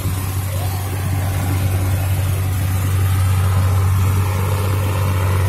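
Diesel engine of a multi-deck river passenger launch passing close by: a steady low drone that grows gradually louder.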